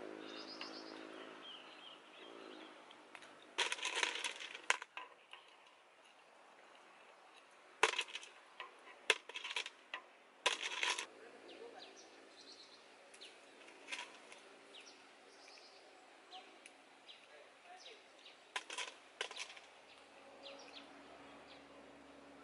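Clam shells clicking and scraping against each other in several short bursts of hard clinks as they are handled and prised open.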